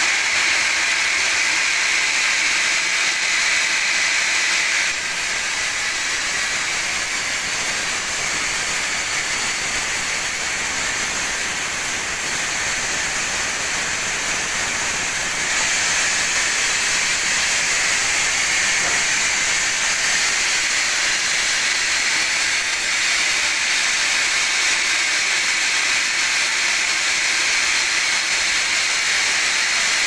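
Log band saw sawing through a teak log: a loud, steady, high hiss of the blade in the wood. Its tone shifts abruptly about five and fifteen seconds in.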